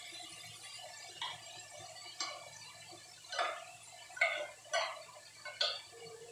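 Metal spoon scraping and tapping against an open tuna can, knocking the tuna out into a cooking pot: about six short clinks at uneven intervals.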